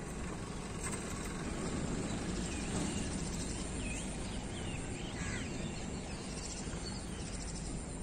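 Steady outdoor background noise with a low rumble, and a few short bird chirps a few seconds in.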